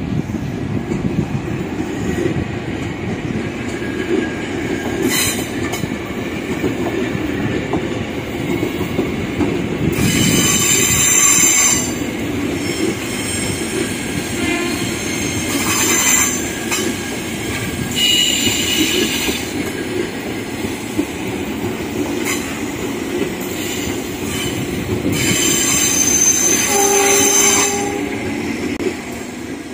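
KAI Commuter 6000-series electric commuter train (KRL) running past on the track: a steady rumble of wheels on rail, with high-pitched wheel squeal coming and going in several spells. A short steady tone sounds near the end.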